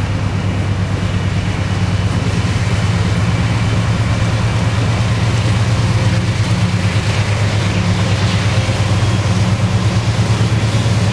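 Norfolk Southern diesel-electric locomotive's engine running under load as the coal train pulls away after a stop, a steady low drone that grows a little louder as the locomotive passes close by.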